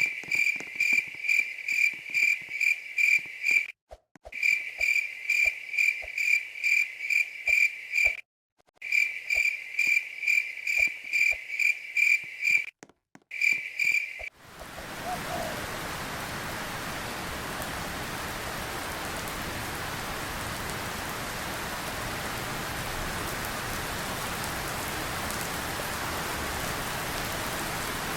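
A cricket chirping in regular pulses, about three a second, with the sound cutting off abruptly a few times; about fourteen seconds in it gives way to steady rain.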